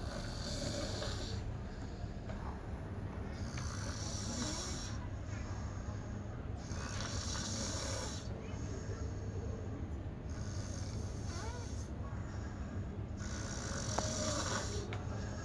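A person snoring in sleep: five snores at an even pace, one about every three seconds, each lasting about a second and a half, over a steady low hum.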